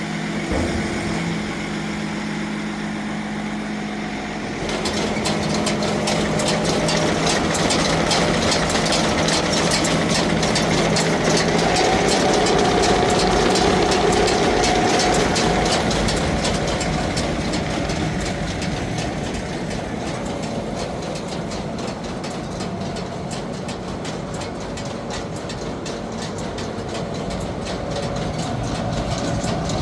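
Heavy engine running steadily, most likely the tractor powering the round baler. About four and a half seconds in it grows louder and busier with fast rhythmic mechanical noise, then eases off somewhat in the second half.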